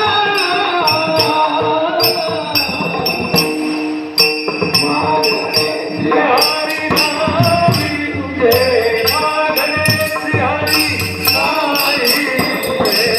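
Warkari kirtan music: small hand cymbals (taal) struck in a steady rhythm under a sung devotional melody and held accompanying tones.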